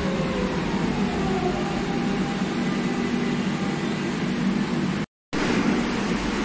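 Madrid Metro Serie 3400 train running into an underground station over a steady rumble of wheels on rails, its electric motor whine falling in pitch as it slows. Just after five seconds the sound drops out for a moment and resumes with the same train noise.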